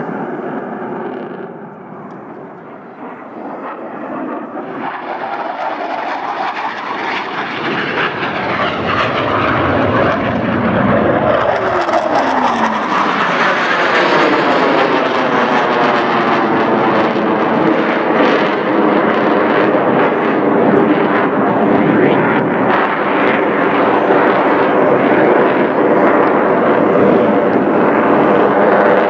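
Jet noise from Blue Angels F/A-18 Hornets in an airshow display. It dips briefly, then grows louder over the first dozen seconds, with a falling sweep in pitch as it peaks, and then holds loud and steady.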